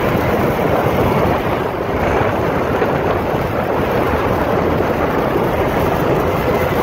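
Steady rush of wind buffeting a microphone on a moving Honda scooter, mixed with the scooter's running engine and road noise.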